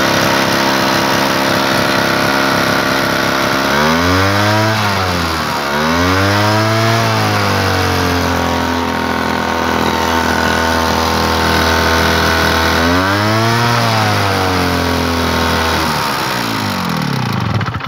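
Solo 410 motorized backpack sprayer's small two-stroke engine running, revved up and back down several times with the throttle lever, then winding down and stopping just before the end. It is running again with a new fuel tap fitted in place of one whose seals the petrol had eaten away.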